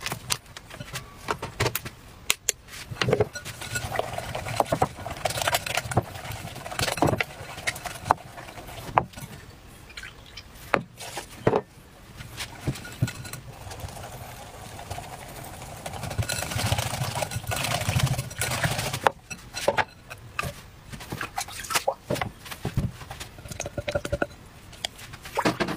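Kitchen handling sounds: irregular clinks and knocks of a wire whisk against a glass mixing bowl of batter and of a crepe maker and bowls being set down on a wooden board. Near the end, thick batter is poured and scraped from the glass bowl into a dish with a spatula.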